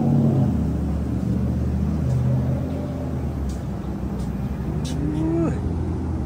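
A motor vehicle running with a low, steady hum.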